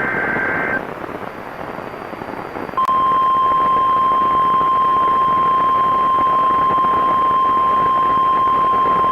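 NOAA Weather Radio emergency alert: the last of the screeching two-tone SAME data bursts ends within the first second, followed by radio hiss. About three seconds in, the long steady single-pitch warning alarm tone starts and holds, heralding a new tornado warning.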